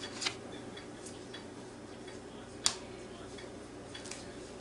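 A few light, scattered clicks of a metal spoon tapping against a paper plate and the pan while diced onions are scraped in, with one sharper tick about two and a half seconds in, over faint room noise.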